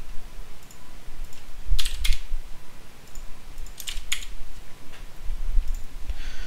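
Computer keyboard keystrokes: thickness values being typed into a finite-element program, in short clusters about two and four seconds in, over low thumps.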